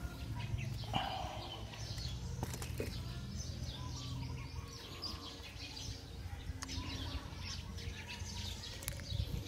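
Small birds chirping over a low steady hum, with a few sharp clicks and knocks from handling a freshly caught fish and its hook.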